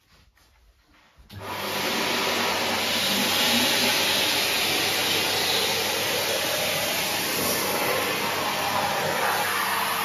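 Numatic Henry Xtra cylinder vacuum cleaner starts up about a second in and runs steadily, its hard floor tool sucking spilled porridge oats off a lino floor.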